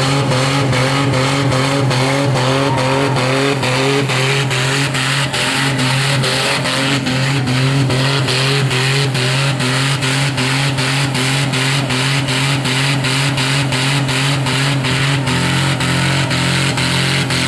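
Holden VN Commodore wagon doing a burnout: the engine is held at high revs with the rear wheels spinning, a steady drone that pulses about four times a second.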